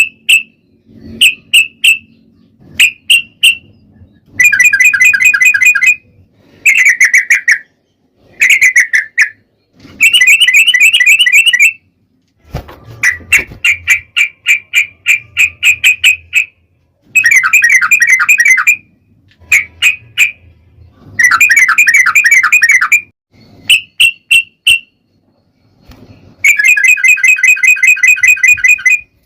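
Yellow-vented bulbul (trucukan) singing in loud bursts of fast, bubbling repeated notes, each burst lasting a second or two, with short chirps and brief pauses between them. This is the long rolling 'ropel' song used to provoke other bulbuls into answering.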